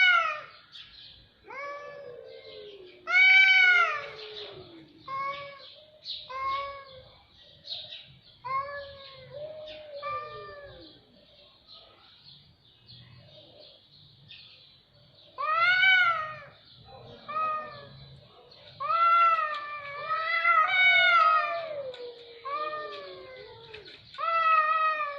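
Cats meowing and yowling in a string of rising-and-falling calls, a higher voice and a lower, longer drawn-out wailing voice overlapping, with a lull of a few seconds about halfway through.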